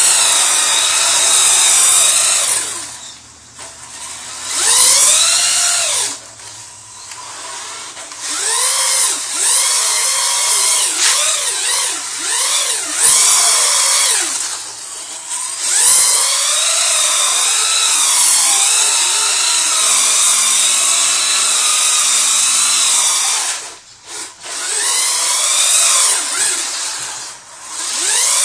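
Electric RC truck motors whining, the pitch rising and falling over and over as the throttle is worked, over the hiss of tyres spraying through shallow water. The sound drops away briefly a few times as the trucks let off.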